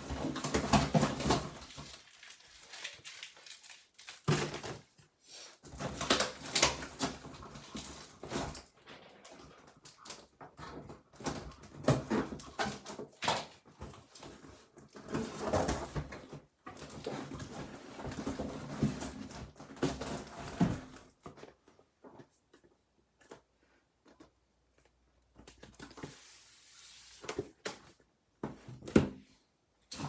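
Cardboard box flaps and packing tape being pulled, torn and handled, in irregular bursts of rustling and scraping with short pauses.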